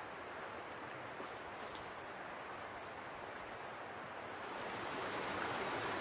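Steady rushing of a flowing forest stream, growing louder about four and a half seconds in, with a faint high tick repeating two or three times a second over the first part.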